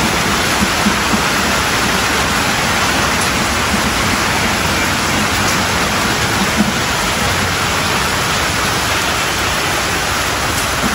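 Rain falling steadily and loudly, a dense even hiss with no let-up.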